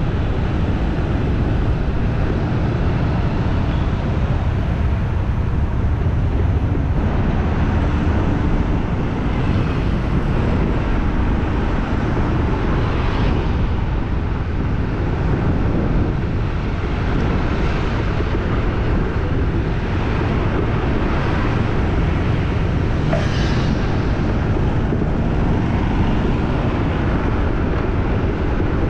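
Busy street ambience: a steady low rumble of traffic, with no breaks.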